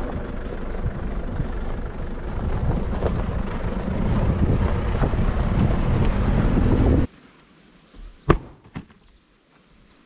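Nissan Patrol driving along a dirt 4WD track: steady engine and tyre noise on the gravel. It cuts off about seven seconds in, and a quiet stretch follows with two sharp knocks about half a second apart.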